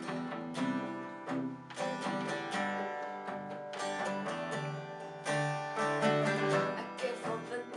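Two acoustic guitars strumming chords together in a steady rhythm, an instrumental passage with no singing.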